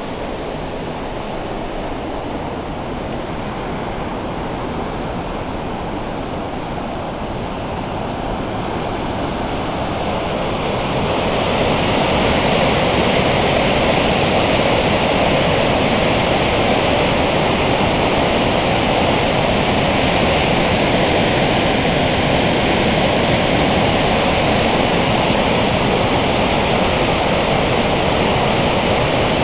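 High river flow spilling over a dam's spillway and crashing into whitewater below: a steady, loud rush of falling water. It grows louder about ten seconds in and then holds steady.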